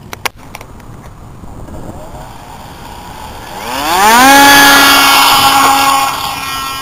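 Brushless electric motor and propeller of a foam RC plane spooling up about three and a half seconds in: a whine rising quickly in pitch, then holding steady at full throttle for the takeoff run and getting a little fainter near the end. A few sharp clicks just at the start.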